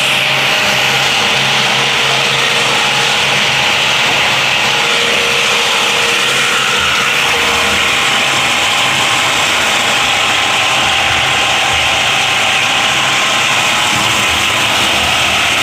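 Heavy-duty 24-inch plastic scrap grinder running: a loud, steady grinding noise with a low hum underneath.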